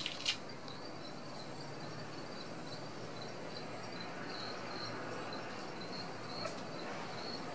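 Insects chirping outside in a steady, high-pitched pulsing trill, with one sharp click just after the start and a fainter click near the end.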